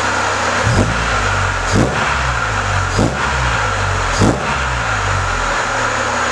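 Honda Civic EK's SOHC VTEC D-series four-cylinder idling on a cold start, blipped four times about a second apart, each rev rising and dropping back quickly before it settles to idle.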